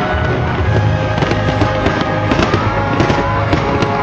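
Fireworks display going off in a quick succession of sharp bangs, with music playing loudly underneath.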